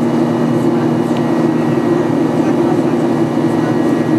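Boeing 737-800 cabin noise during the climb after takeoff: a steady drone of the CFM56 jet engines and rushing air, with a constant low hum.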